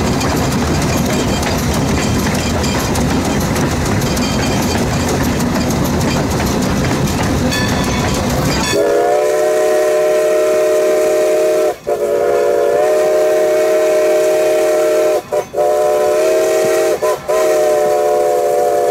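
Steam whistle of Strasburg Rail Road No. 90, a 2-10-0 Decapod steam locomotive, blowing a crossing signal of long, long, short, long, starting about halfway through. Before the whistle, the locomotive's steady rumbling running noise.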